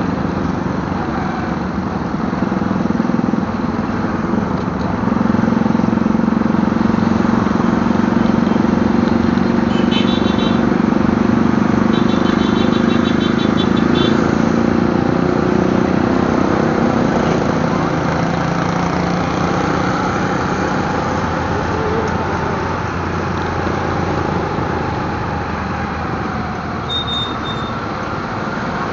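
Motorcycle engine running steadily while riding in traffic, its pitch dropping a little past the middle. A rapid string of short high beeps sounds twice, about ten seconds in and again a couple of seconds later.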